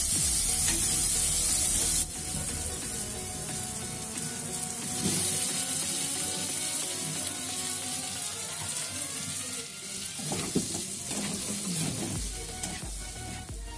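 Oil and spice masala sizzling in a steel kadai while a metal spatula stirs and scrapes the pan. The sizzle is loudest for the first two seconds, then drops sharply and carries on more quietly as boiled potato pieces are stirred into the masala.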